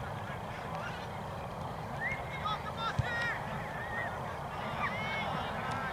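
Birds honking: many short, overlapping calls starting about two seconds in, over a steady background hiss, with a single thud about three seconds in.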